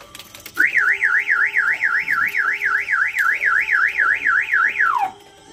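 Car alarm siren of the pickup's aftermarket central locking system, warbling quickly up and down at about four cycles a second. It starts about half a second in and ends in a falling glide near the end.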